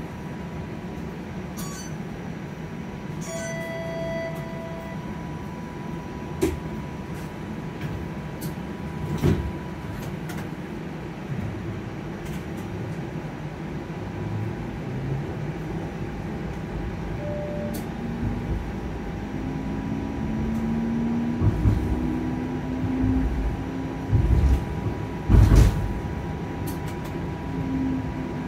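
Inside a TTC streetcar in motion: a steady rumble of the wheels on the track, with a faint constant whine and occasional clunks and knocks. A short electronic tone sounds a few seconds in, and in the second half a motor hum climbs in pitch in steps as the car speeds up.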